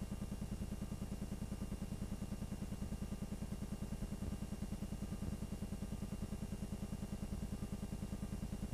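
A film projector running: a steady, rapid, even mechanical clatter that does not change when the picture cuts.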